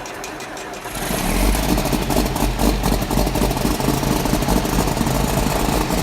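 Large farm tractor engine running, getting much louder about a second in with a deep rumble.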